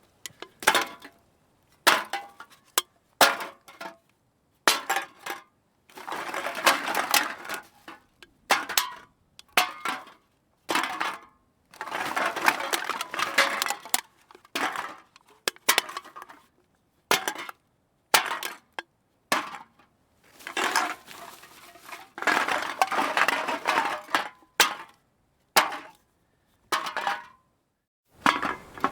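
Cans being handled and counted close up: irregular metallic clinks and clattering, some single knocks and some longer rattling runs as cans knock together. Near the end, after a short pause, the clinking starts again, heard from farther away.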